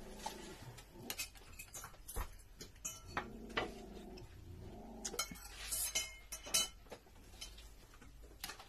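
Metal spoons and forks clinking and scraping against ceramic plates and bowls while eating, in irregular sharp clicks.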